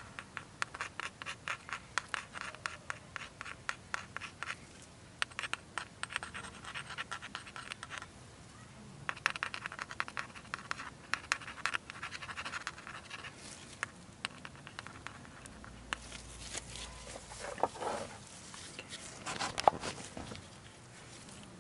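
Gloved hands squeezing a tube of brake grease and working it onto a caliper slide pin: a run of rapid small clicks and rubbing that pauses briefly about four and eight seconds in and thins out in the second half.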